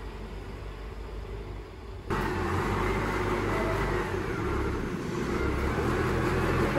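A vehicle engine running steadily, with a low rumble under a broad noise; it steps up abruptly louder and noisier about two seconds in.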